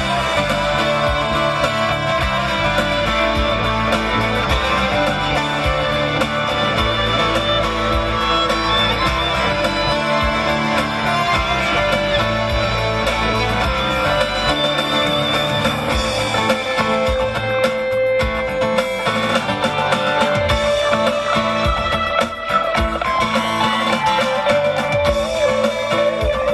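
Live instrumental music from a small band: an electric guitar plays over bass guitar, with a violin in the mix.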